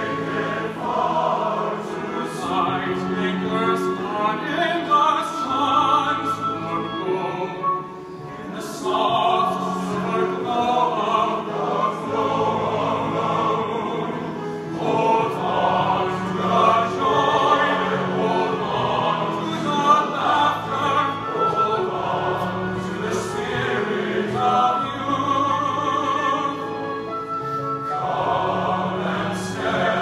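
Large men's chorus singing a slow choral piece, recorded live from the audience.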